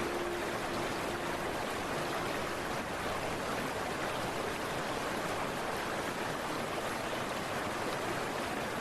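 Steady rush of flowing water, the flooded Ganga river running high, an even unbroken wash of noise.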